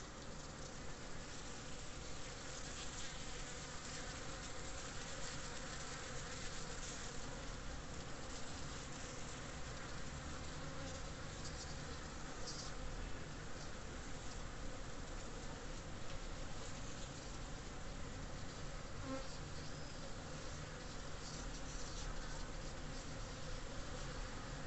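Many bees buzzing steadily as they forage among the open flowers of an angel's trumpet shrub.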